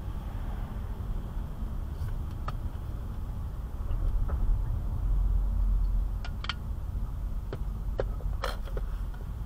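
Cabin noise of a car driving slowly: a steady low rumble of engine and tyres on the road, swelling for a couple of seconds midway. A few short clicks and light knocks, like interior rattles over bumps, come in the second half.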